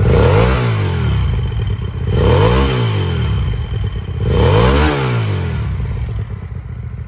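Hyosung GT250R's air-cooled four-stroke V-twin revved in three throttle blips about two seconds apart, each rising and falling in pitch, then settling back to idle near the end. The seller presents the engine as running well.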